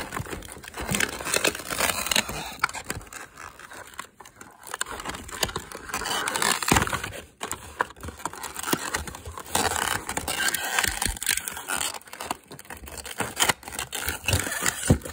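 Cardboard and plastic packaging being scraped and rustled as a small toy broom is pried out of its box, with irregular clicks and knocks.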